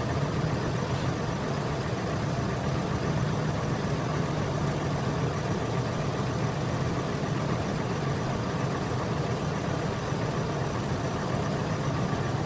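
2003 Ford F-150's 5.4 Triton V8 idling steadily with a misfire on cylinder 1, caused by a failed fuel injector.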